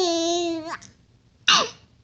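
A baby's drawn-out, high-pitched squeal, falling slightly in pitch, then a short, sharp sneeze-like burst about one and a half seconds in.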